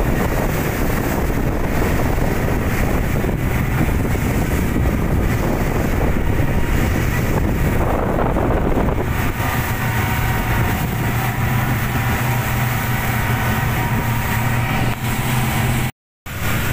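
Rescue boat under way in a choppy sea: wind buffeting the microphone and water rushing past the hull, with the boat's engine showing as a steady hum from about halfway through. A brief cut to silence near the end.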